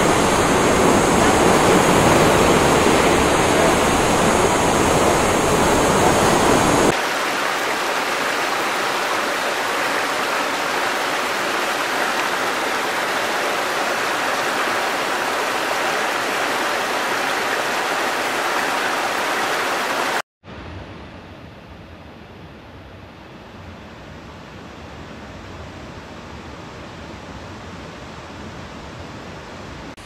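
Rushing water, changing abruptly twice: a loud, full waterfall for about the first seven seconds, then the lighter, higher rush of a rocky stream, and after a brief drop-out about two-thirds of the way through, the quieter splashing of a small cascade.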